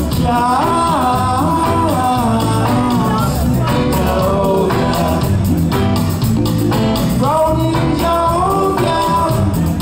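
Live reggae band playing on stage: bass, drums and guitars, with a melody line carried over the top that climbs and holds notes twice.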